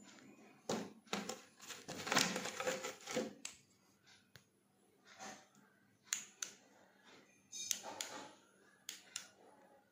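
Handling noise from a plastic-bodied rechargeable torch and its plastic packaging tray: a dense run of rustling and clattering clicks in the first few seconds, then a few separate sharp clicks, among them the torch's switch being turned on.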